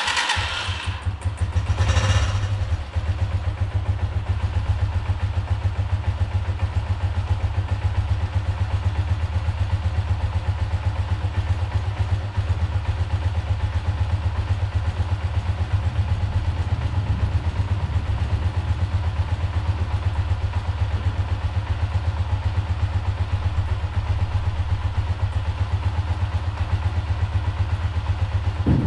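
Honda CGL 125's air-cooled single-cylinder four-stroke engine idling steadily with an even thumping beat, just after being started, with a brief burst of revs about two seconds in.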